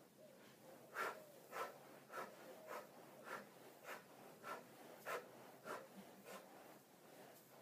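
A person doing bicycle crunches, with a short, sharp sound at each twist, about three every two seconds and some louder than others.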